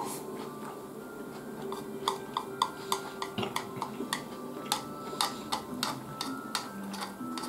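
Chopsticks clicking and scraping against a rice bowl while rice is scooped up to the mouth: a quick run of sharp clicks, several a second, starting about two seconds in.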